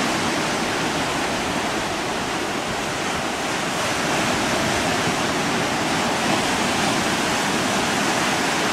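A steady, even rushing noise with no distinct events or rhythm.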